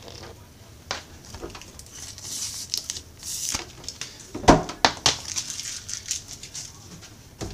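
Handling noise of rustling and light knocks as a bread maker's power cord is moved about. About halfway through, the bread maker's hinged stainless-steel lid shuts with a single loud knock.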